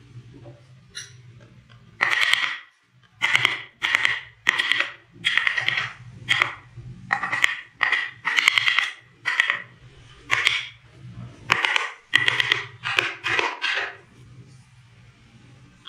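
Carving chisel driven into wood by blows of a wooden board used as a mallet: a series of short crackling cuts, about one or two a second, with a brief pause in the middle and a stop near the end. A low steady hum lies underneath.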